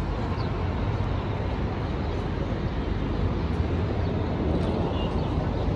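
Steady road traffic noise from cars and buses on the street below, heard from high above.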